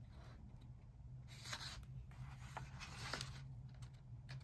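Quiet rustling of a picture book's paper pages being turned by hand, with a couple of soft swishes, the clearest about a second and a half in and another about three seconds in.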